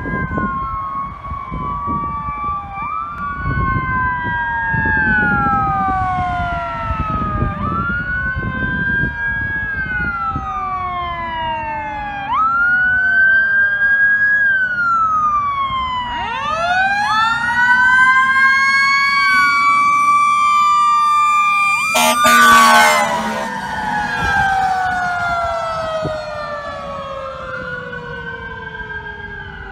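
Fire engine siren wailing as the truck approaches, its pitch rising and falling over and over in overlapping sweeps. About two-thirds of the way through it is joined briefly by a horn blast.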